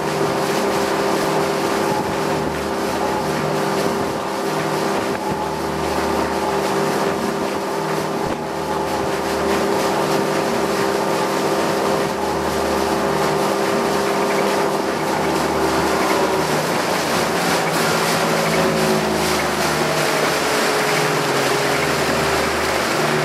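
Small fishing boat's outboard motor running under way, a steady engine drone over water and wind noise on the microphone. Its pitch eases gradually lower in the second half.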